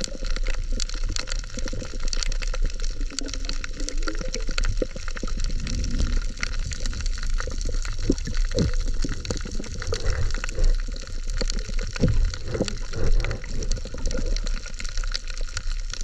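Underwater sound heard through a camera housing: a steady rush of water, thickly dotted with short crackling clicks and occasional bubbling gurgles.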